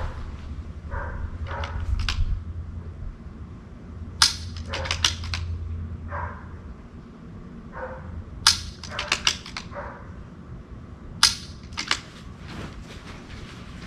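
Shots from a .22 rimfire rifle: three sharp cracks a few seconds apart, the last the loudest, each followed by quieter clicks and knocks.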